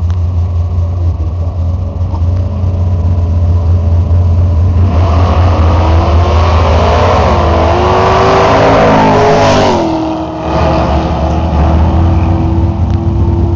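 Drag-racing cars on a nitrous run accelerating hard down the strip. Their engine noise swells loudly about five seconds in, rising in pitch, then drops off sharply near the ten-second mark and settles to a steadier drone. A steady low engine rumble runs underneath throughout.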